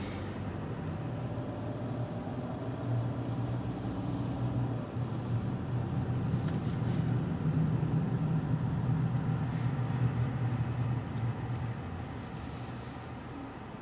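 Car engine and tyre noise heard from inside the cabin as the car drives slowly: a steady low hum that grows a little louder midway and eases off near the end.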